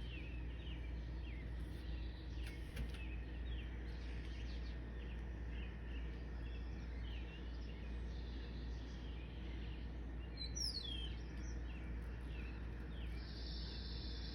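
Wild birds chirping in short repeated notes, with one call sliding down in pitch about ten and a half seconds in and a fast trill near the end, over a steady low rumble.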